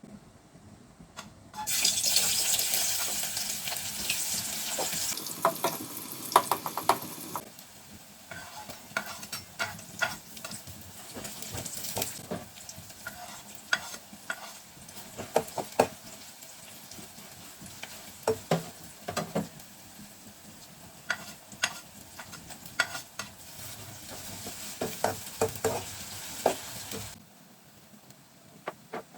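Chickpeas frying in a pan: a loud sizzle starts about two seconds in and settles to a softer sizzle after several seconds. A spatula stirs and clicks against the pan throughout, and the sizzle stops abruptly near the end.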